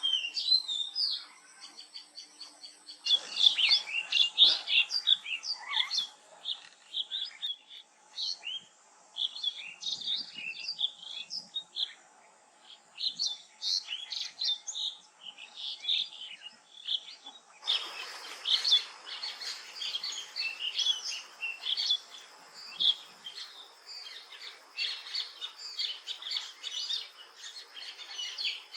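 Wild birds calling, a dense run of quick high chirps and twitters that hardly pauses. The background changes abruptly about three seconds in and again past the middle, as one recording gives way to another.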